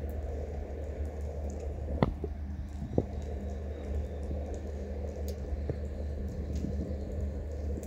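Calico cat crunching dry kibble: small irregular crunches and clicks, with two sharper clicks about two and three seconds in, over a steady low hum of street noise.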